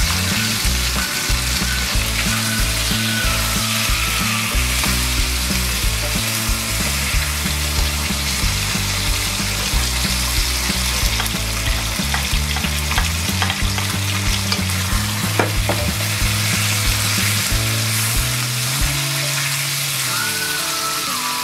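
Pig blood curd sizzling in hot oil in a steel wok as it is stir-fried, with a wooden spatula now and then clicking and scraping against the pan.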